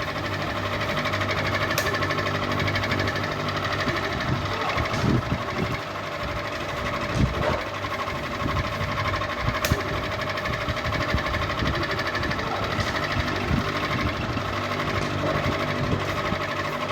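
Ceiling fan running with a steady mechanical whir and hum, with a fine rapid rattle, and a couple of sharp clicks.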